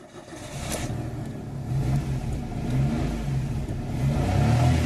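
Daewoo Matiz three-cylinder petrol engine starting up and running, its revs rising and falling. The engine now fires because the ECU's immobilizer has been disabled.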